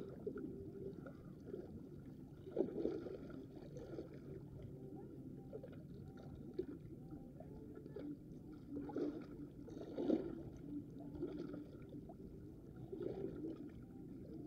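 Small waves lapping and washing against shoreline rocks, a soft steady wash that swells up now and then.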